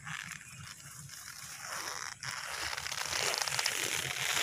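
Leaves of a tied-up durian seedling and plastic raffia string rustling and crinkling as they are handled, growing steadily louder.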